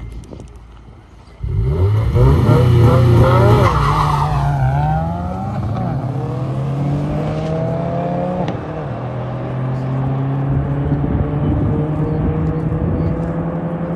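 A car doing a burnout: the engine starts revving suddenly about a second and a half in, with tyre squeal over the next few seconds, then holds at high revs with the wheels spinning.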